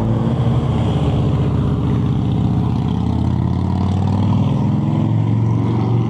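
Motor vehicle engine running close by, a steady low-pitched drone that holds level throughout.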